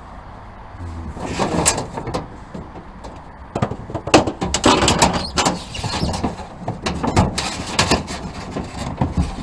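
Irregular knocks, clicks and scraping of battery cables being handled and routed under a board inside a metal truck tool box, starting about a second in.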